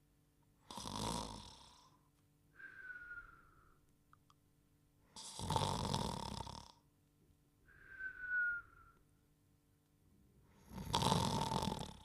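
Cartoon snoring and whistling from a sleeping cartoon dog, three times over. Each cycle is a noisy in-breath snore followed by a short whistle that falls slightly in pitch on the out-breath. The cycle comes round about every five seconds.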